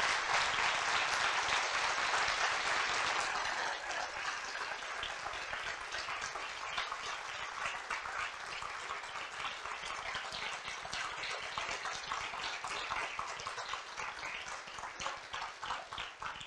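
Audience applauding at the end of a lecture: dense and steady for the first few seconds, then thinning to separate claps that grow sparser toward the end.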